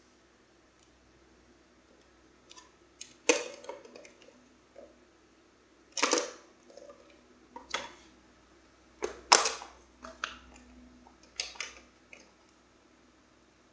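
Scattered sharp clicks and knocks of hard plastic being handled, from RC transmitter cases and their wiring being moved by hand. There are five or six louder knocks, some with small clicks close after them.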